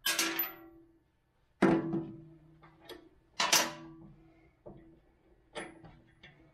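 Steel parts and tools clanking against a steel tractor loader bucket as an edge-tamer extender is unbolted: five sharp metallic knocks, each ringing briefly. The loudest come about one and a half and three and a half seconds in.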